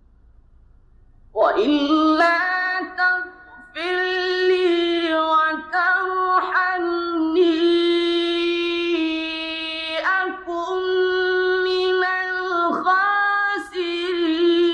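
A man's high voice chanting Qur'anic recitation in long, ornamented melismatic phrases with sustained held notes, beginning about a second and a half in and pausing briefly between phrases. Under it runs the faint low hum of an old recording.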